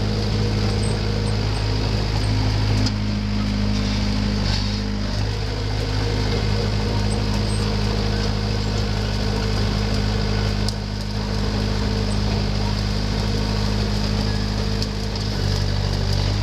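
Komatsu D20 crawler dozer's diesel engine running steadily, heard from the operator's seat. Its note shifts slightly a few times as it works.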